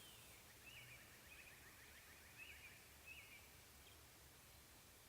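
Faint songbird calls: short repeated whistled notes and a quick trill about a second in, over an otherwise quiet outdoor background.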